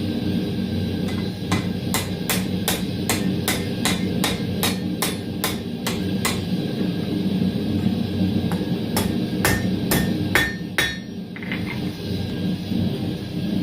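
Blacksmith's hammer striking hot steel tongs on an anvil, bending one half of the tong down to adjust it: a run of about a dozen evenly spaced blows, a short pause, then a second run of about seven with some anvil ring. A steady low rumble runs underneath.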